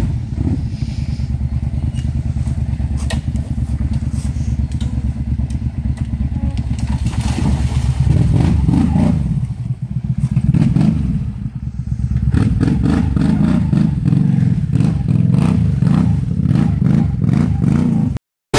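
Sport quad (ATV) engines running off-road, steady at first, then revved up and down over and over as a quad drives through a muddy stream, with scattered knocks and clatter. The engine sound cuts off abruptly near the end.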